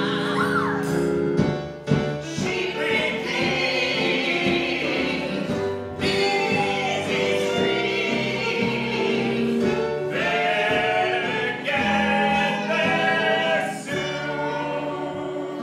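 A show tune sung by a man and two women together, with instrumental accompaniment.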